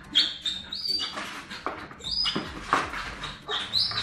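A dog whining in short, high-pitched whimpers, repeated several times, with scattered clicks and scuffles in between.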